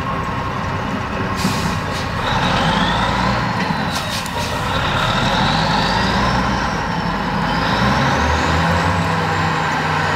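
Clark Michigan 475B wheel loader's diesel engine running hard under load, getting louder about two seconds in, with a whine that rises and falls in pitch.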